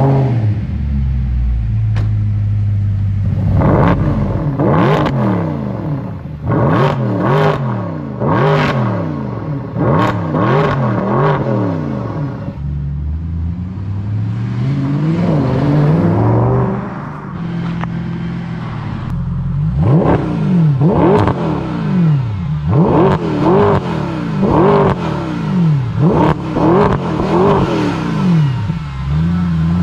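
Mercedes-AMG SLS 6.3-litre naturally aspirated V8, breathing through a sport exhaust with the rear silencer section removed, revved over and over in quick blips, its pitch shooting up and falling back. There are a few longer, slower pulls and short spells of steady idle between them.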